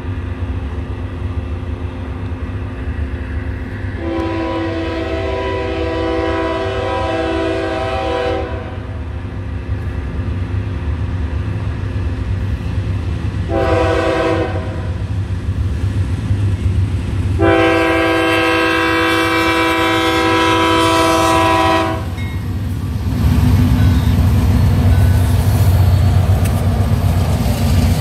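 Freight diesel locomotive's air horn sounding three chords, long, short, long: the warning signal for an approaching grade crossing. Under the horn is a steady low engine rumble, which grows louder near the end as the CSX locomotives and freight cars pass close by.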